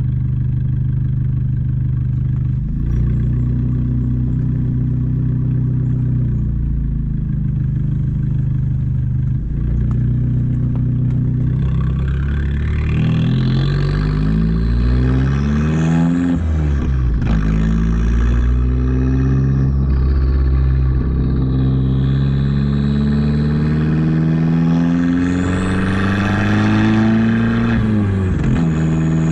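Abarth 595 Competizione's 1.4 turbocharged four-cylinder running through a Record Monza exhaust with a 200-cell downpipe. The engine note is steady at first. From about twelve seconds in, it climbs in pitch and falls back several times, with a sudden drop about halfway through and another near the end.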